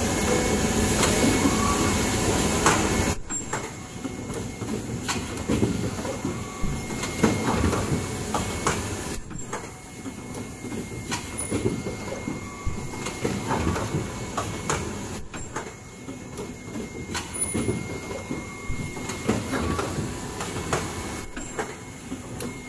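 Fully automatic N95 cup mask machine running: a continuous mechanical clatter of conveyor and actuators with a faint steady whine, and a sharper, louder burst about every six seconds as each machine cycle fires.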